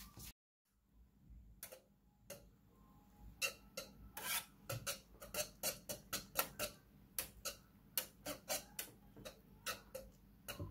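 Metal wire whisk clicking against the sides of a saucepan while stirring thickened white sauce. The clicks come sparsely at first, then about three a second.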